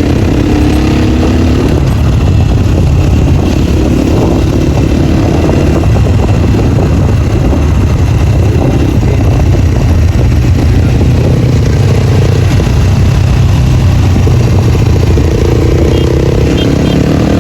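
Dirt bike engine without its dB killer, running loud under way, its note rising and falling as the throttle is opened and closed.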